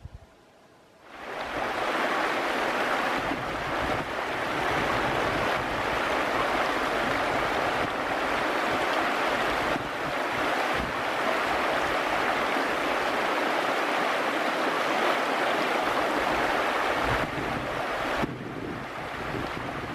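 Mountain river rushing steadily over rocks and boulders, a loud continuous wash of water that sets in about a second in and eases slightly near the end.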